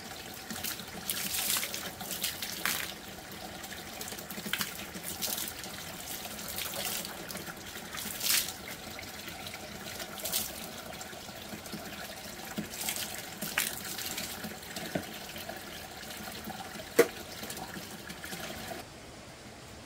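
Mouth-rinsing at an outdoor wash spot: water sipped from a plastic bucket and spat out, splashing in short, irregular spurts every second or two, with one sharp knock near the end.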